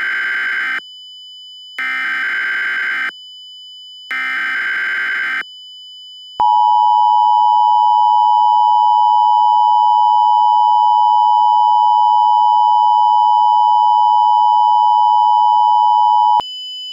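Emergency Alert System tones: three buzzy, screeching SAME header data bursts, each about a second long with short gaps, then the EAS two-tone attention signal held steady for about ten seconds, cutting off suddenly near the end. A thin, steady high-pitched tone runs underneath throughout.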